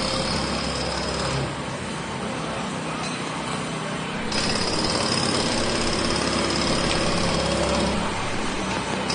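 Pneumatic jackhammer hammering in spells: a short run at the start, a lighter stretch, then a longer, louder run from about four seconds in that eases off about a second before the end.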